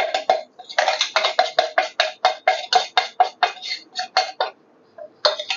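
A stainless-steel bowl and mesh sieve knocking together in quick metallic taps, about five a second, as spice powder is shaken through the sieve. The tapping stops briefly near the end, then starts again.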